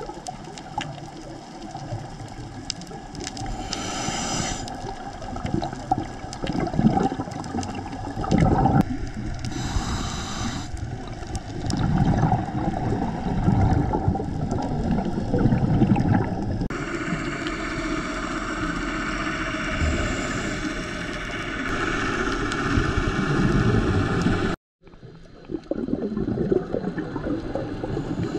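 Water noise picked up underwater on a scuba dive: continuous bubbling and gurgling over a low rumble, with two short hisses about 4 and 10 seconds in. The sound cuts out for a moment near the end.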